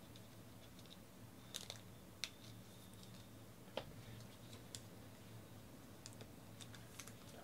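Near silence with a low steady hum, broken by a handful of faint, sharp clicks and taps.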